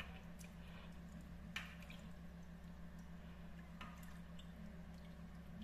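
Faint drips and small wet squelches as hands peel the skin off a raw squid in a bowl of water, over a steady low hum. A handful of short drips, the loudest about one and a half seconds in.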